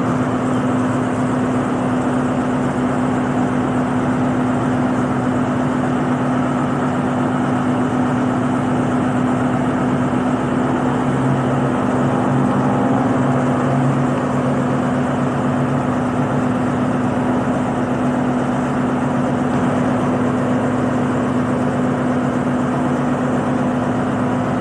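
Alsthom diesel-electric locomotive idling steadily with a constant engine hum while its freight train stands waiting for a signal.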